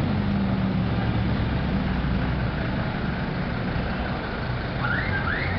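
Engine of a 1950s American car idling and moving off, a low steady hum over street noise. Two short rising high-pitched sounds come near the end.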